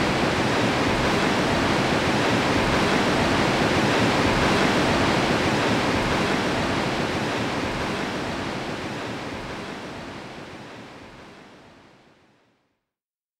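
Turbulent white water of the Barnafoss falls rushing steadily. It fades out gradually over the second half.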